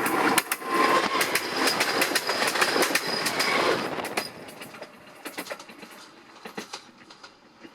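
Railway train rolling past, its wheels clacking rapidly over the rail joints. It fades sharply after about four seconds, leaving fainter scattered clacks.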